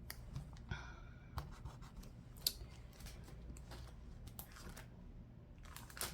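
Soft scratching and rustling of paper being handled by hand on a planner page, with scattered light ticks, the sharpest about two and a half seconds in.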